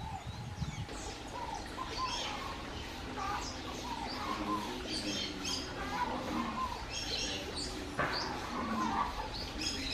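Several wild birds chirping and calling together, many short high chirps overlapping, with lower-pitched calls mixed in.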